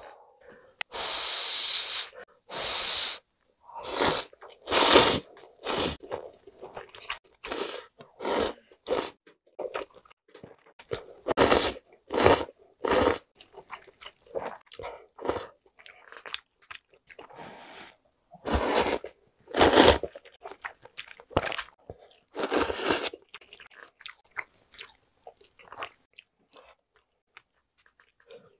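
Eating sounds of spicy soft-tofu soup with chewy jjolmyeon noodles: two sips or slurps of broth about a second long near the start, then a long run of short slurps and wet chewing of noodles, tofu and beef.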